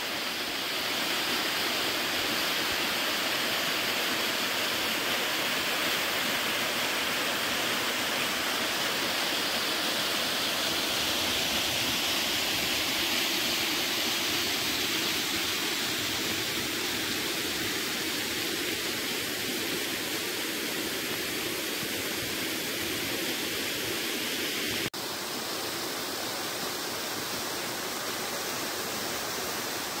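Mountain waterfall pouring over a rock face and splashing, a steady rushing; it is carrying more water than usual after morning rain. About 25 seconds in the rush drops a little in level.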